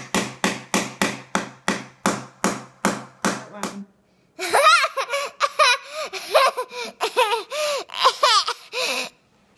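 A small claw hammer striking a board over and over, about four blows a second, for roughly four seconds. Then a young boy laughs loudly and at length.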